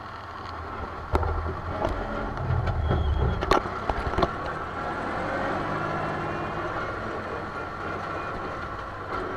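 Old tractor's engine running as it drives along, heard from inside its cab, with the cab rattling and several sharp knocks in the first half.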